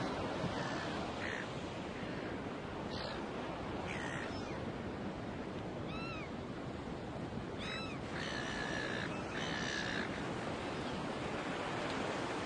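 Ocean surf washing steadily, with seabirds calling over it. Short arching cries come about six and eight seconds in, followed by two longer, held calls.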